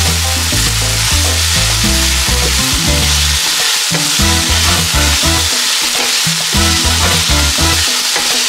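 A meat and vegetable stir-fry sizzling steadily in a stainless steel pan while a wooden spatula stirs it, with background music under it.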